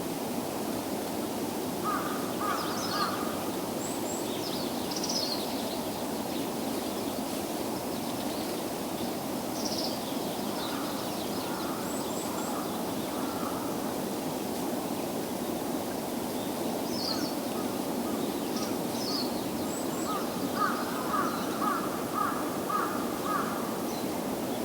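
Crows cawing in short repeated series, in three bouts, over a steady low outdoor background hum. A few brief high-pitched chirps from small birds are scattered between them.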